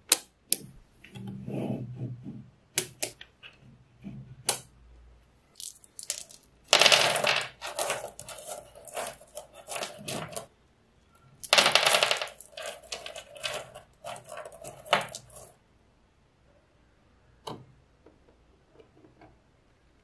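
Sharp clicks of small magnetic balls snapping against each other, then two runs of dense clattering about seven and twelve seconds in as small pebbles are dropped and spread on the table.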